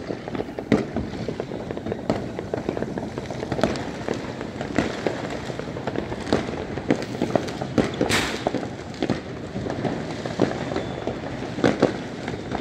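Fireworks going off: many irregular bangs and pops over a steady crackling background, with a louder bang about eight seconds in.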